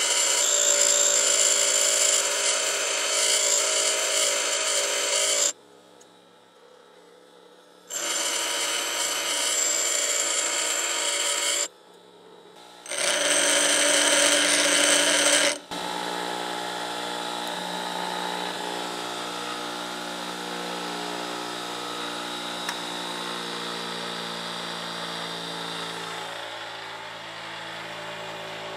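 Bench grinder wheel grinding a steel parting-tool blank, in three passes of a few seconds each with short pauses between. Then a quieter, steady machine hum.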